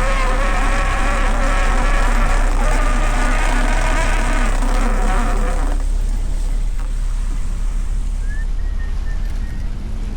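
A buzzing motor on a crabbing boat runs steadily and cuts off about six seconds in, over a steady low engine rumble that keeps going.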